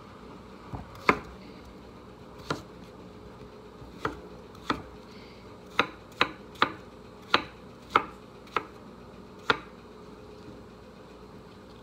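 Chef's knife chopping vegetables on a wooden cutting board: about a dozen sharp, separate knocks of the blade hitting the board at an uneven pace, with a pause after the last one.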